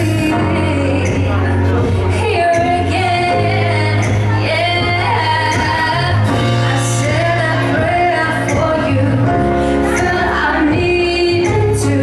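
Live pop song by a female singer with a band: sung vocal melody over a steady bass line and drums with cymbal strokes.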